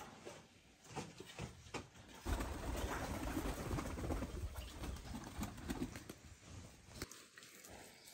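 Domestic hens making low clucking calls while they peck at scattered grain, with a steady low rumble for several seconds in the middle.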